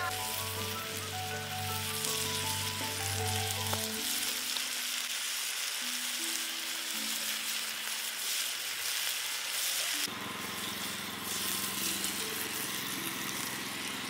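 Beef and potatoes frying in a small one-handled grill pan over a wood fire, giving a steady sizzle, with soft background music underneath.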